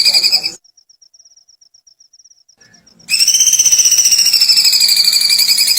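A bird's rapid, high-pitched, pulsing trill, a giggling call likened to a kuntilanak's cackle. It breaks off about half a second in, leaving only a faint thin trill, then comes back loud after about three seconds, dipping slightly in pitch and rising again.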